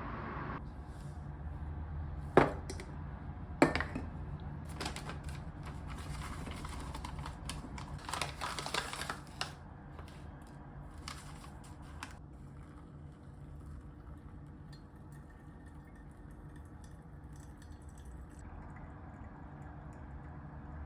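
Two sharp knocks, then a run of light clicks and taps of objects being handled. The clicking stops about halfway through, leaving a low steady hum.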